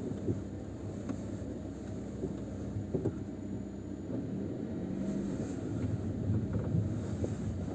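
Changan CS35 Plus standing still with the engine idling and brakes held while the steering wheel is turned: a few short clicks and knocks from the left front wheel area over the steady engine hum. The owner takes these for abnormal noises.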